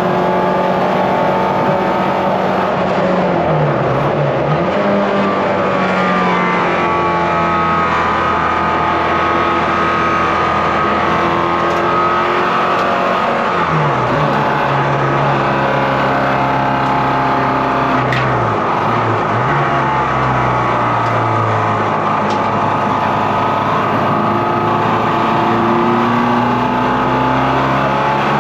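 Ford Fiesta rallycross car's engine heard from inside the cockpit while lapping a race track, revving up through the gears and falling back in pitch on each lift or gear change, with sharp drops a few seconds in, about halfway and around two-thirds through.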